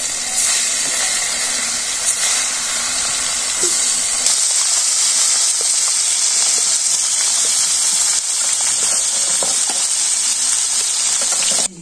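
Fish steaks frying in hot oil in a wok over a wood fire: a loud, steady sizzle with a few small pops of spitting oil, which cuts off suddenly near the end.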